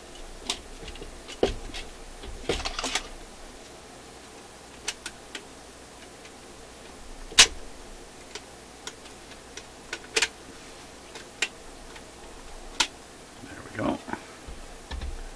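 Scattered clicks, knocks and rustles of a vintage record player's turntable platter being lifted off its spindle and handled, with one sharp knock about seven seconds in.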